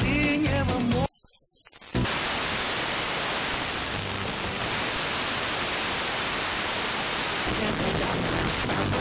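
Demodulated wideband FM audio from an RTL-SDR receiver: a station's music cuts off about a second in, there is a short mute, then steady loud FM static hiss as the receiver is retuned off the station. Faint programme audio creeps back through the hiss near the end.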